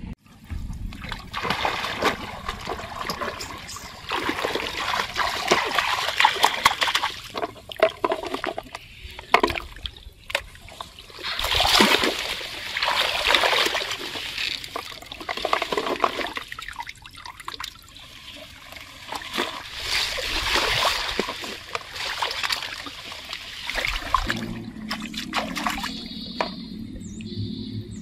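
Shallow water splashing and sloshing in repeated bouts of a few seconds as a person wades and works in it.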